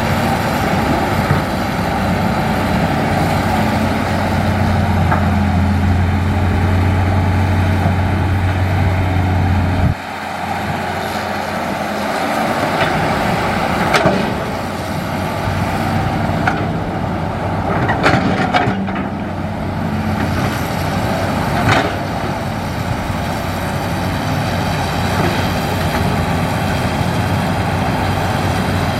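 Hitachi hydraulic excavator's diesel engine running under working load, its deep hum easing off about a third of the way through. A few sharp knocks and clanks come in the second half.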